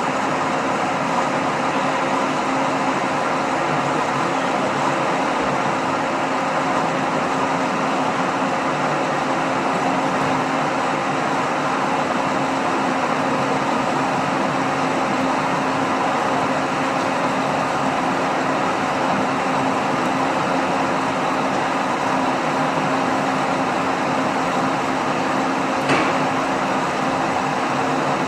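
Metal-working lathe running steadily, with a constant motor hum under its machining noise, during turning work. One short click near the end.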